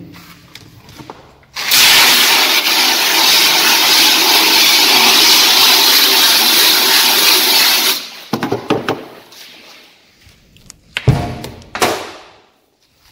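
Electric pressure washer blasting water against a freshly exposed screen-printing screen to wash out the emulsion. It starts suddenly a couple of seconds in, runs steadily for about six seconds, then cuts off. A few knocks and two thumps follow near the end.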